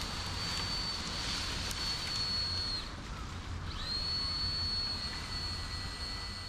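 Engine-driven rope winch running: a steady high whine over a low engine hum. The whine drops away about three seconds in and comes back up a second later.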